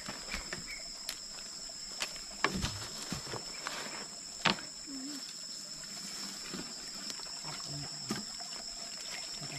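Insects calling steadily in two unbroken high tones. Scattered light clicks and knocks come through them, with one sharp knock about four and a half seconds in.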